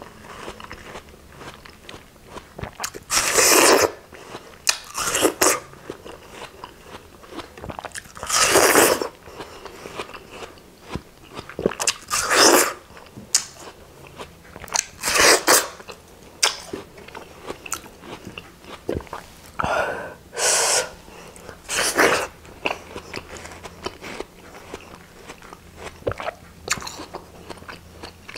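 Close-miked bites into juicy watermelon slices, each a short loud wet crunch, repeated every few seconds, with quieter chewing in between.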